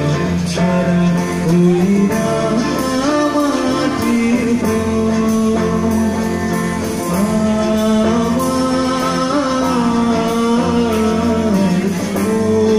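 Live rock band playing through a PA: a man singing a held, bending melody over guitars and drums.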